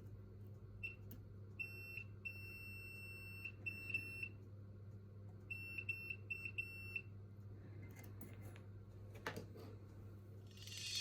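Electronic beeper of a clamp multimeter giving irregular short and long beeps at one high pitch, as a continuity buzzer does when the test leads make and break contact. A steady low hum runs underneath, and there is a single click near the end.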